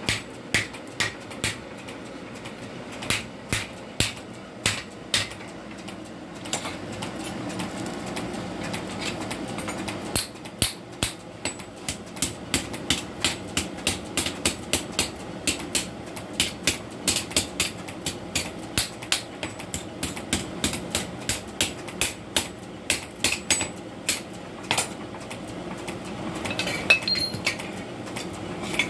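Blacksmith's hammer striking metal on the anvil while forging a blade. A few scattered ringing blows come first, then from about ten seconds in a steady run of roughly two blows a second, over a low steady hum.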